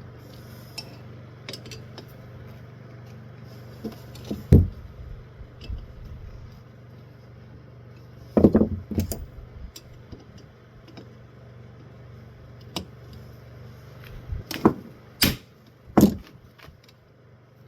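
Ceiling fan motor parts being handled and fitted together during a bearing replacement: scattered knocks and clicks, with a sharp cluster about halfway through and several more near the end, over a steady low hum.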